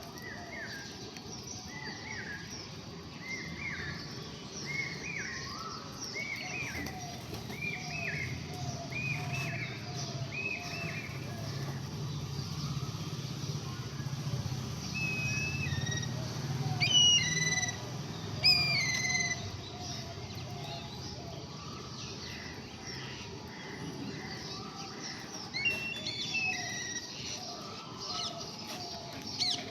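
Birds chirping: a steady run of short repeated chirps, roughly one or two a second, with a few louder, sharper calls about halfway through. A low hum sits under the middle stretch.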